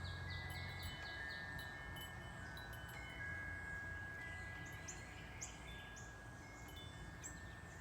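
Wind chimes ringing: several long, overlapping tones that hang on for seconds. A quick series of short high chirps sounds in the first second, with a few more about five seconds in.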